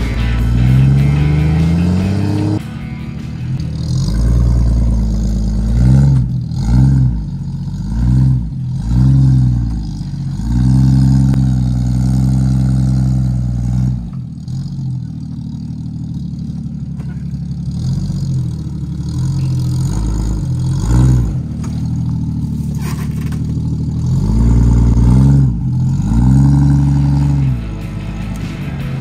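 Jeep engine revving up and dropping back again and again in short throttle bursts, some held for a few seconds, typical of working a vehicle over off-road obstacles.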